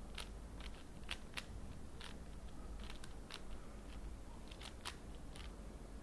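Plastic Rubik's cube being twisted by hand. The layers turn with irregular sharp clicks, about a dozen of them, some in quick pairs.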